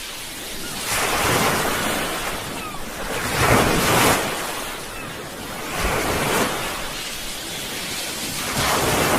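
Sea waves breaking on a shore, one after another. A surge of surf rises and falls about every two and a half seconds, the strongest about three and a half seconds in.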